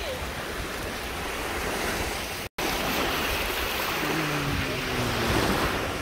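Sea waves washing on the shore with wind buffeting the microphone, as a steady rushing noise; the sound cuts out briefly about two and a half seconds in.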